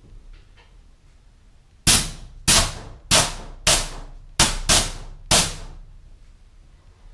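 ZEX dual-outlet nitrous purge solenoid being fired seven times in quick succession, each press a sharp hiss of nitrous venting through the twin nozzles that dies away in about half a second.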